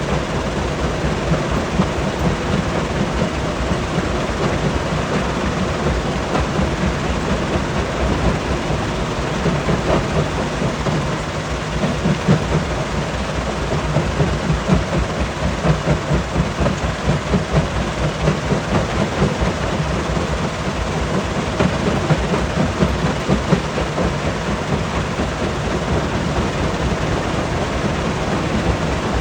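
Rock crusher running under load: a steady heavy rumble with a continuous dense rattle of stone being crushed.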